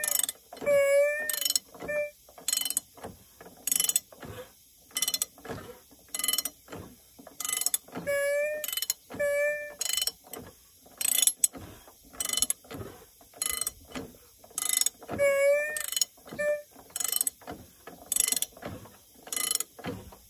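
Ratchet wrench clicking in steady strokes, about one or two a second, as a once-seized Briggs & Stratton 26 HP Intek V-twin engine is turned over by hand, with a short squeak on some strokes. The engine is starting to turn more freely after oil was put in the cylinders.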